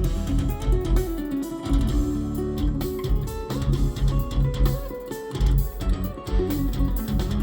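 Recorded music playing through Radiant Acoustics Clarity 6.2 bookshelf speakers, backed by subwoofers, and picked up by a phone's built-in microphones in the room: plucked guitar over deep bass and a steady beat.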